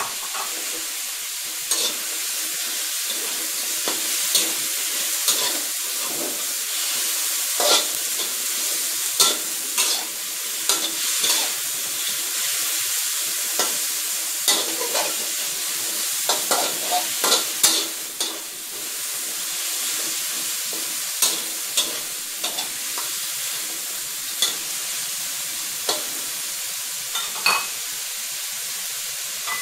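Chinese kale stems and sliced pork sizzling steadily in an oiled wok, with a spatula scraping and knocking against the wok at irregular intervals as they are stir-fried.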